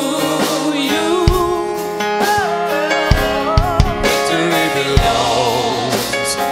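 Church praise team singing a gospel worship refrain over a live band, with sustained keys or guitar and scattered drum hits.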